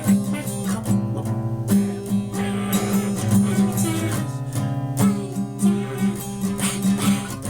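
Guitar strummed in a steady rhythm, repeated chords ringing over a sustained low note.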